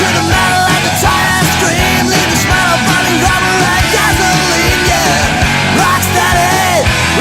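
Rock music with distorted electric guitar and drums, a lead guitar bending notes.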